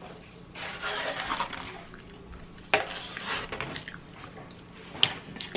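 Close-up eating and handling noises: two stretches of rustling mouth or food-packaging sound, then a sharp click about five seconds in.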